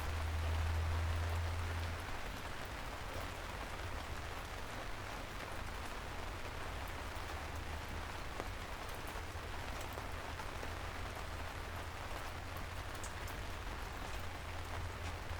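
Steady soft rain falling on a city street, an even hiss with scattered fine drop ticks. A low rumble is louder for the first two seconds, then eases off.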